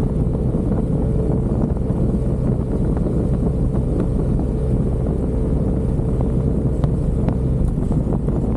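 Riding noise from a moving Yamaha Aerox 155 scooter: wind rushing over the microphone, with the scooter's 155 cc single-cylinder engine running at a steady speed underneath.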